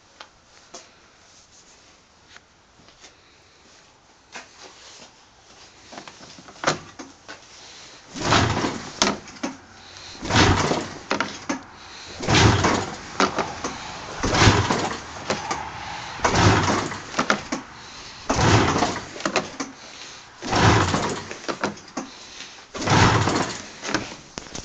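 Yamaha SRX 700 snowmobile making loud, repeated bursts of sound, each about a second long and about two seconds apart, starting about eight seconds in after a few light clicks.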